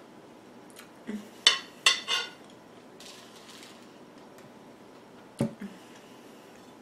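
Metal fork clinking and scraping against a ceramic plate: a quick cluster of sharp, ringing clinks between one and two and a half seconds in, then a single knock about five and a half seconds in.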